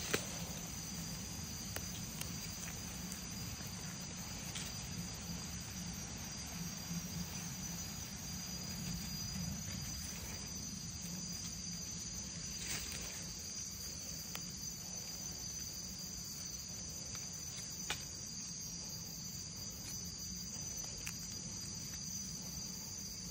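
Steady chorus of insects with two high, unbroken tones. A few sharp clicks sound over it, the clearest about 18 seconds in.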